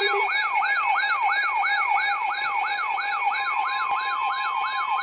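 Electronic siren-style emergency alert tone: a rising sweep that snaps back and repeats about three times a second over steady background tones. A lower pulsing tone stops just after the start, and a steady single alert tone joins about three seconds in.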